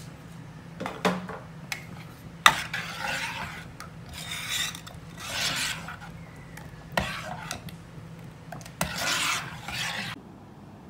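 Stainless steel ladle scraping around the inside of a ceramic pot while stirring thick mushroom soup, in about six separate strokes with a few sharp clinks of metal on the pot.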